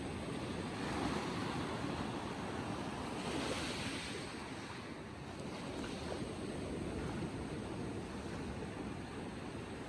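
Small sea waves breaking over a rocky reef and washing through shallow water, a steady rush that swells twice, about a second in and again around three to four seconds in.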